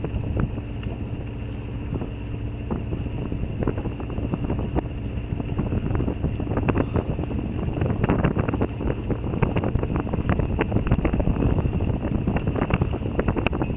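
Sailboat's engine running steadily under way, with wind buffeting the microphone. From about six seconds in, dense rapid crackles are laid over it.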